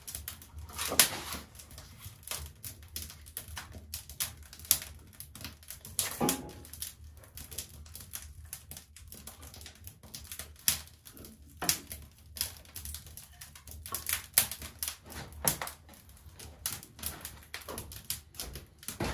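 Wood fire crackling and popping on an iron grate in an open brick hearth, with irregular sharp snaps throughout. A few heavier knocks, about a second in and again around six seconds in, as split kindling is laid on the fire.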